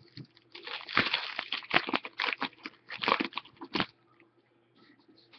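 Foil wrapper of a hockey trading-card pack crinkling and crackling as it is handled and torn open, a busy run of rustles from about a second in until nearly four seconds.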